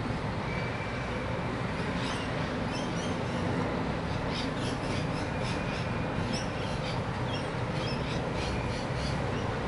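Rainbow lorikeets chirping in many short, high, repeated calls from about two seconds in, over a steady low rumble.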